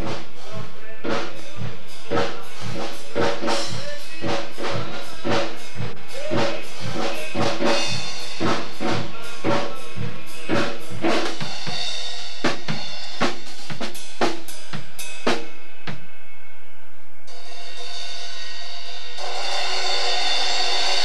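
Acoustic drum kit with Zildjian cymbals played in fast, busy patterns of snare, toms and bass drum. About 16 seconds in the hits thin out, then the cymbals ring in a continuous wash near the end.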